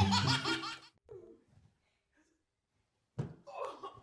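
The last second of a children's music jingle, then a gap of near silence; about three seconds in, a sudden thump and people's voices and laughter as a family tumbles over on a plastic rocking toy.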